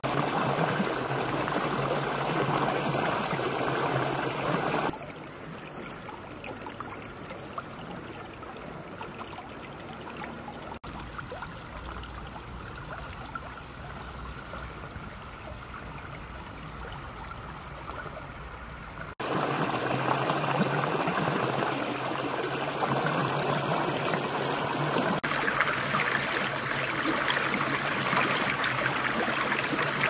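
A small stream flowing over grass and stones: a steady splashing and trickling of water. It drops to a quieter trickle about five seconds in and comes back louder about two-thirds of the way through.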